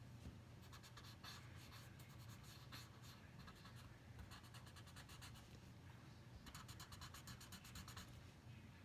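Pencil lead scratching on drawing paper in rapid short shading strokes. The strokes come in spells and are busiest about two-thirds of the way in, faint over a steady low hum.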